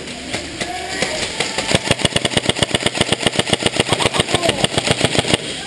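Airsoft electric rifle firing one long full-auto burst, a rapid, even string of shots that stops abruptly near the end.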